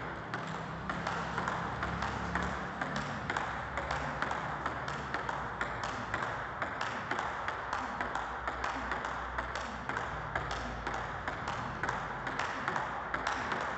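Table tennis rally: a celluloid/plastic ball clicking off two rubber-faced rackets and bouncing on the table, about three to four sharp ticks a second in a steady back-and-forth.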